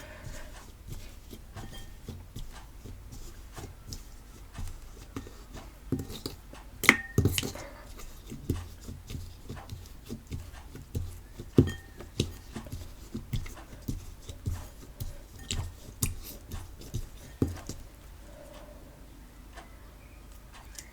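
Homemade white PVA-glue slime, still somewhat rubbery, kneaded and stretched by hand: irregular squishes and soft sticky snaps, about one or two a second, that die away about 18 seconds in.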